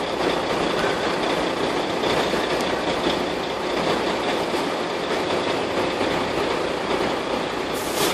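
Steady traffic noise from a queue stopped at a junction, with car and truck engines idling.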